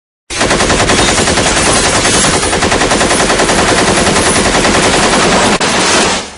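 AK-47 assault rifle firing one long fully automatic burst, starting about a third of a second in and running for nearly six seconds, with a brief break shortly before it ends.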